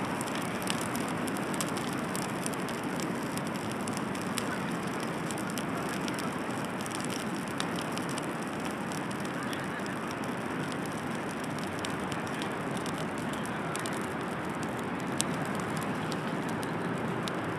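Beach bonfire crackling: scattered sharp pops and snaps over a steady rushing noise.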